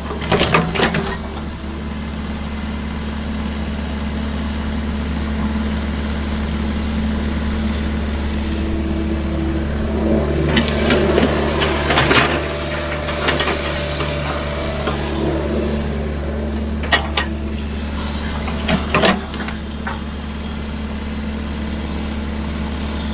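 Heavy excavator's diesel engine running steadily, with several short clanks and knocks and busier working noise partway through.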